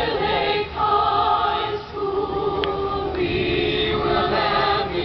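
A choir of mixed voices singing in harmony, holding long notes, with short breaths between phrases.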